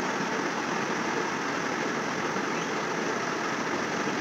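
Steady, even background noise: a rushing hiss that does not change and has no distinct events in it.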